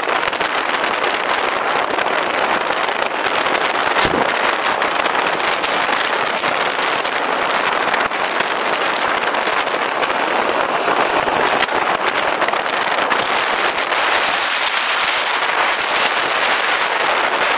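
Steady rush of wind and road noise over the microphone of a moving motorcycle, with one sharp click about four seconds in.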